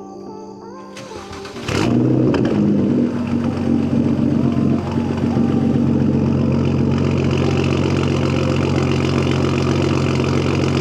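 BMW 335i's turbocharged straight-six starting about two seconds in, with a brief unsteady flare, then settling into a steady idle.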